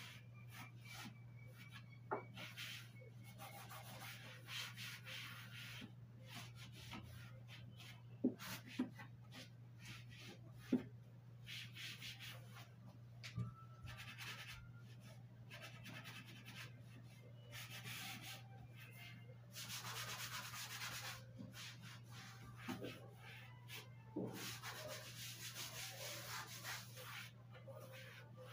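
Scouring sponge scrubbing a white laminate shelf in repeated rubbing strokes, with a few sharp knocks in between.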